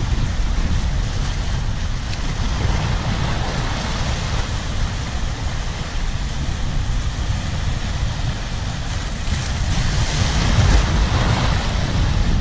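Sea surf washing and breaking over shoreline reef rocks, with wind buffeting the microphone as a low rumble. The surge swells a little louder about ten seconds in.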